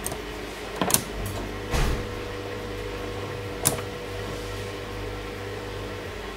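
Circuit breakers in a household consumer unit being flipped by hand: three short, sharp clicks. A steady low hum starts about a second in.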